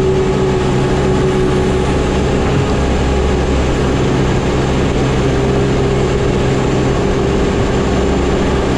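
Bobcat T650 compact track loader's diesel engine running steadily as the machine drives on its rubber tracks, with a steady whine above the engine note. The whine fades a little in the middle and comes back. The sound cuts off suddenly at the end.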